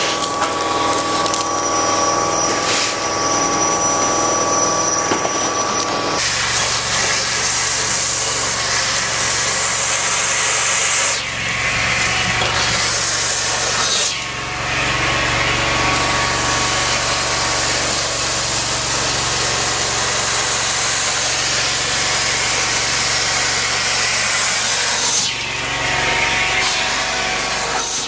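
580 Super Sucker gutter vacuum running: a steady whine with a hum underneath, then from about six seconds in a louder rush of air drawn through its suction hose, dipping briefly a few times.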